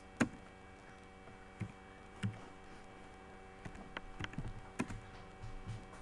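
Computer mouse clicking, with scattered sharp clicks and light taps about a second or less apart, over a steady electrical hum.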